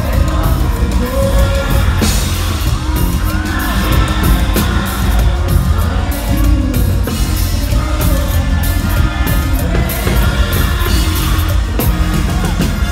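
Loud live concert music with a heavy bass, with audience members yelling and whooping over it.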